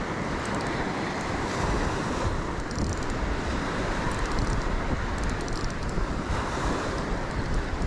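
Surf breaking and washing up the sand, with wind buffeting the microphone in a low rumble.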